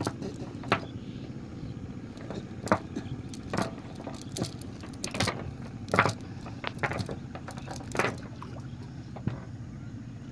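Irregular sharp knocks and clinks, about a dozen with the loudest near the middle, as a fishing net is gathered up and handled against a wooden boat's planks. A steady low hum sits underneath.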